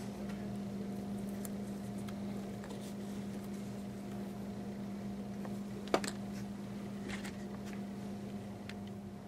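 Faint handling sounds of waxed sinew lacing being pulled through the holes of a leather rifle-lever wrap: light scattered clicks and rustles, with one sharper click about six seconds in, over a steady low hum.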